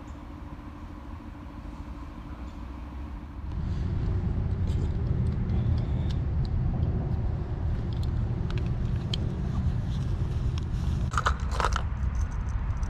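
Footsteps crunching on frozen ground, heard as scattered short crackles, with a steady low rumble underneath that grows louder about three and a half seconds in.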